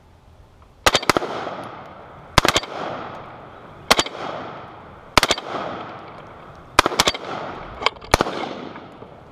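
AR-15 rifles firing single shots at an uneven pace, about ten in all, some in quick pairs, each shot trailing off in a long echo.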